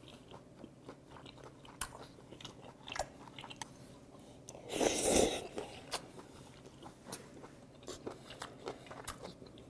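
Close-up eating sounds: moist chewing of cold raw squid mulhoe with many small crunchy clicks, and one loud slurp about five seconds in as a mouthful of squid strands is drawn in.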